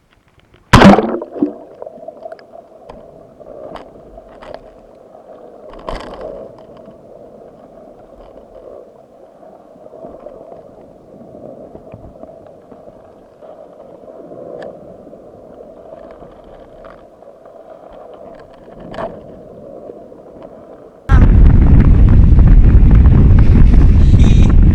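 Muffled underwater sound from a submerged camera, with a sharp knock about a second in and faint scattered clicks and knocks after it. About 21 s in it gives way suddenly to loud wind buffeting the microphone in a gale.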